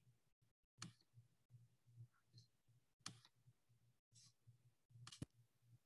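Near silence: room tone with a few faint clicks scattered over several seconds.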